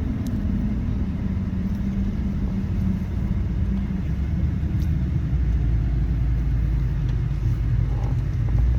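A steady low rumble that grows a little heavier about five seconds in.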